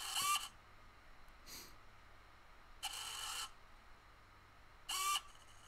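Small hobby servo's motor and gears whirring in short high-pitched bursts as it sweeps its horn across its range: three bursts, at the start, about three seconds in and near the end, the longest about half a second.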